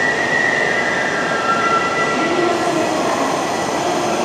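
E5 series Shinkansen train at the platform, its electrical equipment whining over a steady rumble; several high tones drift lower partway through and give way to lower ones.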